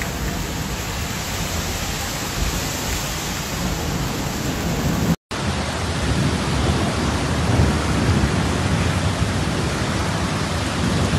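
Heavy storm rain pouring down as a steady dense hiss with a low rumble beneath it. About five seconds in it drops out for an instant and resumes from a different recording.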